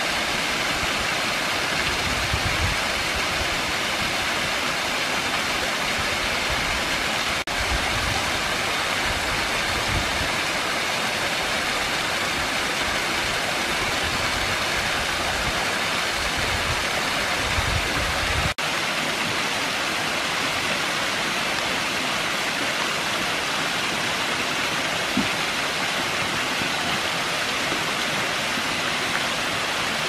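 Small creek waterfall pouring steadily over rock ledges into a pool: a continuous rushing of water, which changes abruptly twice, about seven and eighteen seconds in.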